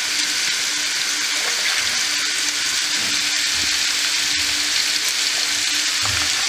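Steady sizzling hiss from the stove, with a few soft low thuds as soaked basmati rice is scooped from a plastic bowl into a pot of boiling salted water.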